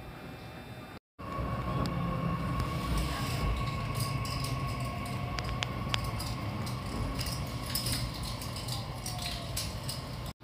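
Running noise inside a local train pulling out of a station: a steady low rumble with a thin, steady whine and scattered clicks and knocks from the wheels and running gear. The sound cuts out briefly about a second in.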